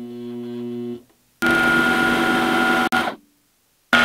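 Eastwood mini lathe running while machining a steel bar, in short edited clips: a steady motor hum for about the first second, then after a brief gap a louder run with a high whine that cuts off about three seconds in, and another loud run with the same whine starting just before the end.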